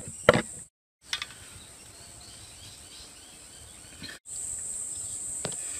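Insects making a steady high-pitched drone, with a few short sharp knocks, the loudest about a third of a second in. The sound cuts out abruptly twice.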